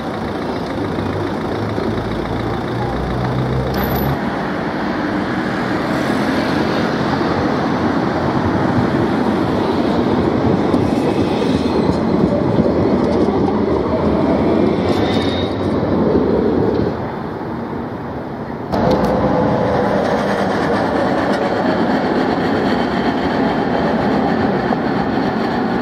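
CAF Urbos 3 low-floor trams running on street track: a steady rumble of wheels on rails and running gear, swelling as a tram passes close by midway, with a brief faint high squeal. The sound drops off abruptly and comes back a moment later as steady street and tram noise.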